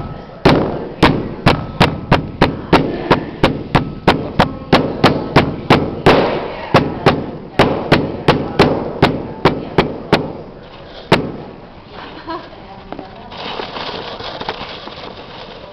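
Steel claw hammer pounding a soft lump flat against a wooden work surface: sharp blows, about two a second, which stop about eleven seconds in.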